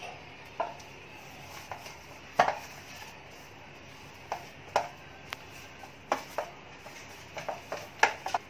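A baking tray being handled and greased with oil, giving a dozen or so light knocks and taps at irregular times; the loudest come about two and a half seconds in and near the end.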